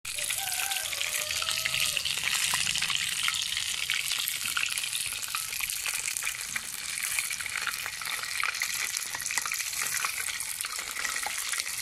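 Masala-coated mushroom pieces deep-frying in hot oil, a steady dense sizzle full of fine crackles. It is the water held in the mushrooms boiling off in the oil.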